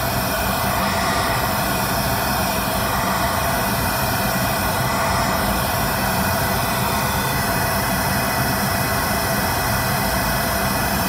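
Pink noise test signal played through a car's front speakers: a steady, even hiss spread across all pitches. It is being used to measure the speakers' frequency response with a microphone.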